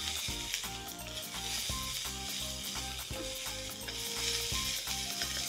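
Fried rice sizzling in a hot wok as a wooden spatula stirs and turns it, with a steady hiss.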